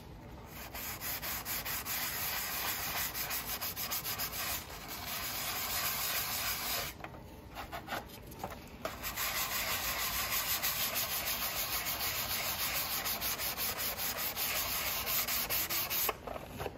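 Rapid back-and-forth scrubbing strokes on a hard molded plastic gun-case insert as it is stripped of old flocking and roughed up for new flock. The strokes pause briefly twice along the way.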